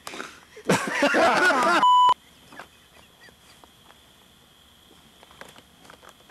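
A man's loud, wavering, wordless cry lasting about a second, cut off abruptly by a short steady electronic bleep.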